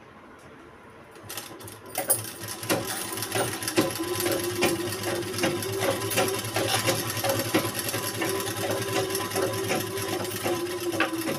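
A few soft clicks, then about two seconds in a sewing machine starts stitching a side seam through the fabric of a frock, running with a rapid, even patter of needle strokes.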